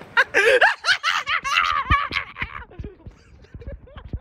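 Young men laughing loudly for about two and a half seconds, then dying down to scattered chuckles and low bumps from the handheld phone's microphone.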